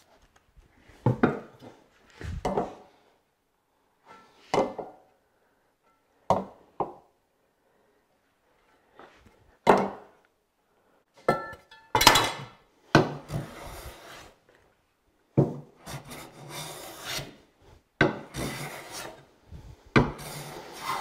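Jack plane with a cambered iron taking light shavings along the edge of a hardwood board: a series of separate planing strokes, short at first, then longer and closer together in the second half after a gap midway.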